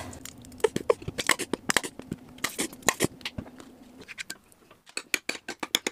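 Metal spoon scooping cream cheese out of a plastic tub into a square bowl of mayonnaise: a run of small, irregular clicks, taps and scrapes.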